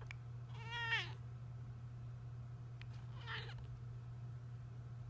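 Domestic cat meowing twice: a loud, drawn-out meow about half a second in, then a shorter, fainter meow about three seconds in.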